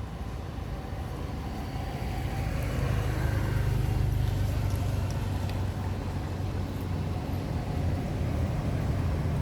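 Low rumble of a motor vehicle's engine, growing louder about two to three seconds in.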